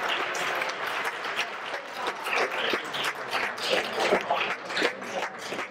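Spectators applauding: many hands clapping irregularly.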